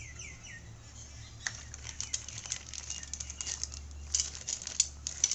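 Clear plastic packaging bag around a metal soldering-iron stand crinkling and crackling as it is handled, with many sharp crackles from about a second and a half in, loudest near the end. A low steady hum runs underneath.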